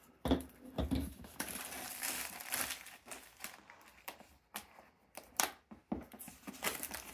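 Clear plastic shrink-wrap crinkling and tearing as it is pulled off a cardboard box, loudest and densest for about a second and a half early on, with scattered short rustles and clicks after. A couple of sharp knocks come in the first second.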